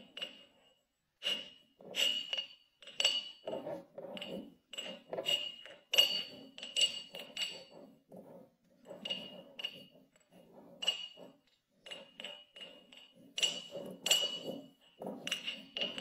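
Wooden honey dipper clinking against the inside of a glass mug as it pokes into packed kinetic sand, with a soft crunch of the sand. The clinks come irregularly, about one or two a second, each with a short glassy ring, and pause briefly about halfway through.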